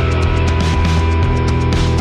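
Background rock music with a steady beat and a heavy bass line, guitar-driven.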